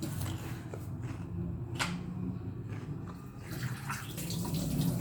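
Liquid running steadily over a low hum, with one sharp click a little under two seconds in.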